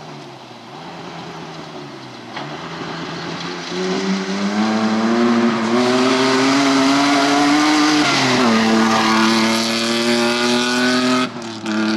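Mitsubishi Pajero off-road rally car under hard acceleration, its engine revving high and growing louder as it approaches. Its engine note drops about eight seconds in as it goes past, then holds steady as it pulls away.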